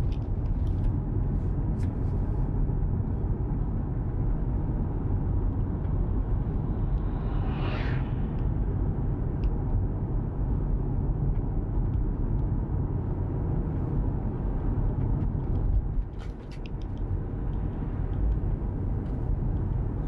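Steady tyre and road rumble heard inside the cabin of a 2019–2020 Tesla Model 3 with single-pane front windows, cruising at about 30 mph, with no engine sound. A decibel meter in the cabin averages 74–75 dB on this run. A brief whoosh rises and falls about eight seconds in, and the noise dips for a moment about sixteen seconds in.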